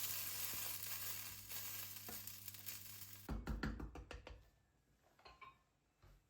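Kitchen tap running in a steady rush, shut off sharply about three seconds in, followed by a brief clatter of knocks from dishes or utensils.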